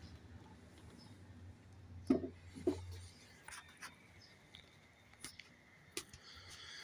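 Faint clicks and light knocks from the parts of a 1903 Raymond sewing machine being handled, the two strongest a little after two seconds in, over a low hum that stops about three seconds in.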